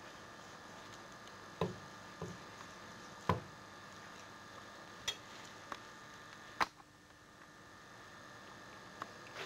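Kitchen knife knocking and clicking on a cutting board while a chicken breast is sliced open, seven or eight scattered light knocks over a faint steady hum.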